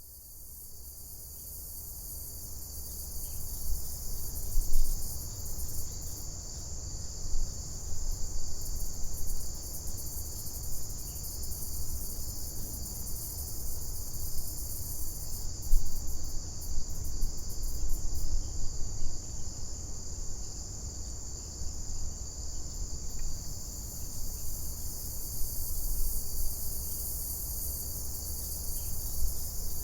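Steady, unbroken high-pitched trilling of night insects, with a low rumble and irregular bumps on the microphone underneath.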